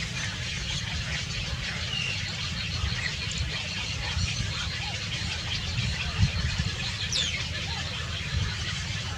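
Faint, scattered bird chirps, with one quick high whistle falling in pitch about seven seconds in, over a steady low rumble with a few dull thumps.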